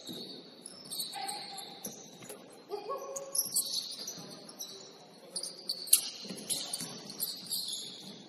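Basketball shoes squeaking on a gym court floor as players move: many short, high squeaks, with a sharp knock about six seconds in.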